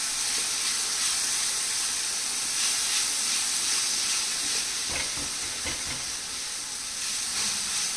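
Grated dry coconut stuffing with nuts, sugar, mawa and cream sizzling in a nonstick pan as it is stirred with a silicone spatula: a steady hiss, with a few soft scrapes and knocks of the spatula about five to six seconds in.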